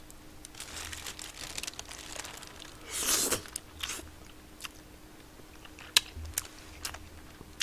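Close-up eating sounds, with chewing and mouth noises near the microphone. There is a louder noisy burst about three seconds in and a few sharp clicks near the end.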